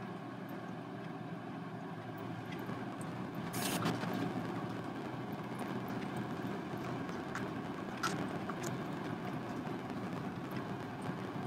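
A steady low hum runs throughout, with a brief rustle about three and a half seconds in and a few faint light clicks later.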